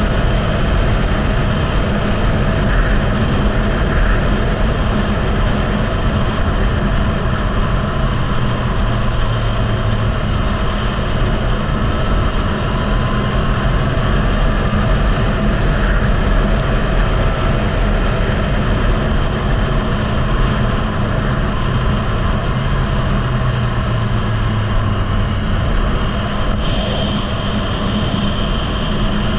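Loud wind noise on the microphone of a motorcycle riding at track speed, with a Yamaha MT-09's inline-three engine running underneath, its note shifting a little as the bike goes through the bends.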